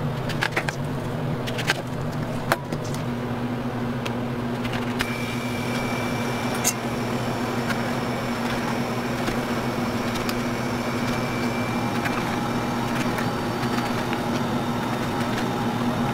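Steady mechanical hum of a motor or fan, with a few sharp clicks in the first seven seconds.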